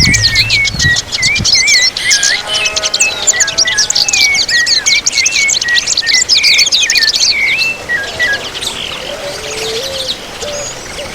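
Many small birds chirping and twittering rapidly in a dense chorus, thinning out about eight seconds in. A low rumble sounds in the first second and a half.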